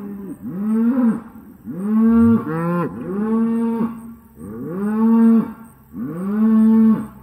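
Cattle mooing over and over, about six calls one after another, each about a second long and rising then falling in pitch. Two calls overlap about two and a half seconds in.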